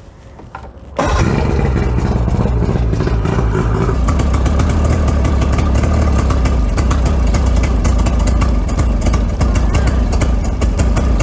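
Mercury 75 hp two-stroke outboard, cowling off and running on flushing muffs, comes in suddenly about a second in and runs steadily while fogging oil is sprayed into its carburetors to stall it out for winter storage.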